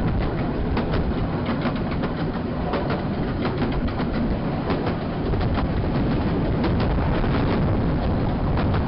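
Light railway coach running along the track: a steady rumble of wheels on rail with many sharp, irregular clicks and knocks from the running gear and rail joints.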